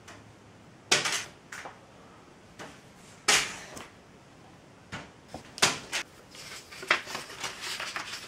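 A series of sharp taps and crackles a second or more apart, then quicker, softer crackling near the end as a sheet of stiff red paper is handled.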